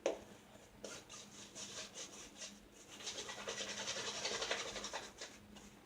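Shaving brush swirling lather over a bearded face: a knock at the start, a few scattered scratchy strokes, then a quick, dense run of brushing strokes from about three seconds in.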